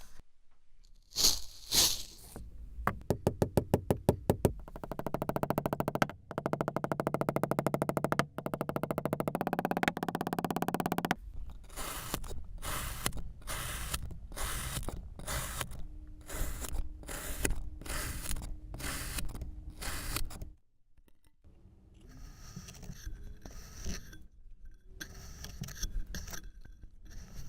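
Kinetic sand being cut and scraped with a tool: a run of crisp scraping strokes, first in a fast rattling series, then steady strokes about two a second, then a brief pause and softer scraping.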